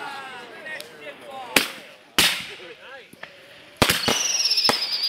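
Consumer fireworks cake firing: two sharp bangs about a second and a half and two seconds in, then, near the end, a rapid string of crackling pops with a high whistle that slowly falls in pitch.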